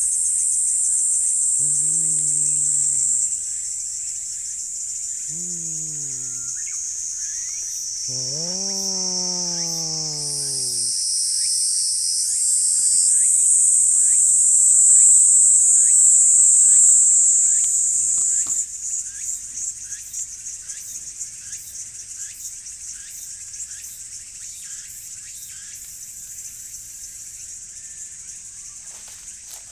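A tabby stray cat growling low warning moans at a rival cat nearby even while being stroked, four drawn-out calls in the first eleven seconds, each rising then falling in pitch. Behind it, a loud, steady, shrill chorus of insects.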